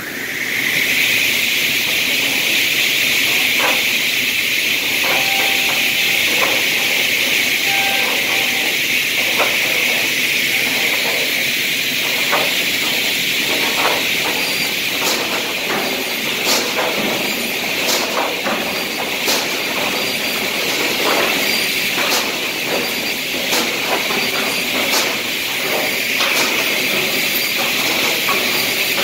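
Retro C component saw line with its auto-feeding live deck running: a steady hiss, with short clattering knocks as boards are moved along the deck and fed into the saw. From about halfway the knocks come regularly, about every second and a half.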